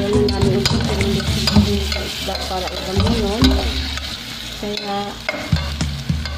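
A metal ladle stirring and scraping sliced onions and tomatoes as they sauté and sizzle in an aluminium pot, with repeated clinks of the ladle against the pot.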